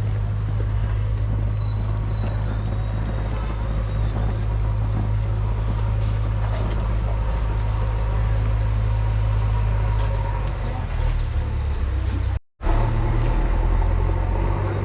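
Steady low rumble, with a few short bird chirps about ten seconds in; the sound drops out for a moment near the end.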